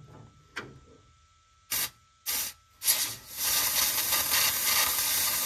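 Compressed-air blow gun hissing into a steel brake line: two short blasts, then a steady blast of about three seconds. The air is not getting through, which the mechanic takes as a sign the line is blocked.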